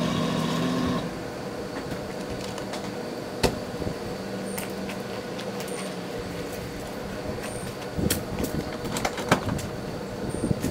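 A car engine's hum that stops about a second in, then a steady outdoor background with a few short, high bird chirps and scattered clicks and knocks near the end.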